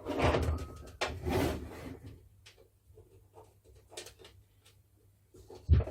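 Hands handling parts and a screw while fitting a panel during assembly: scraping and rustling for about the first two seconds, then scattered light taps, and one sharp knock near the end.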